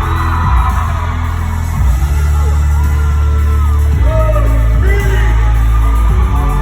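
K-pop music playing loudly, with a heavy steady bass and singing, and whoops and yells over it.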